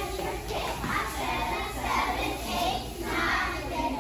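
A group of young girls chanting a cheer together in short rhythmic phrases, about one a second.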